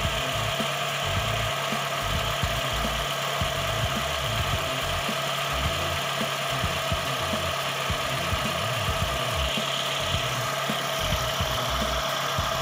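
Honda City's four-cylinder engine idling steadily, heard from underneath the car beside the oil pan and a freshly fitted oil filter, running after an oil and filter change.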